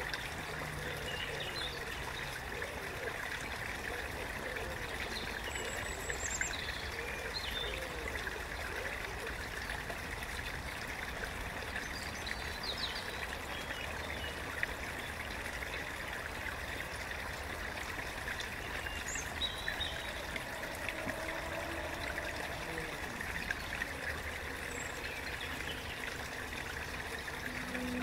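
A small stream trickling and babbling steadily. A few short, high bird chirps come through here and there.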